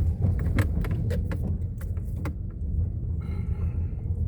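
Motor vehicle running with a steady low rumble and frequent knocks and rattles, mostly in the first two seconds, as from travelling over a rough road.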